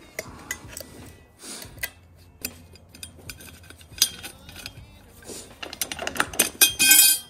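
Metal tools and strut parts clinking and knocking as the top nut and mount come off a coil-over strut held in spring compressors. A denser, louder clattering comes near the end.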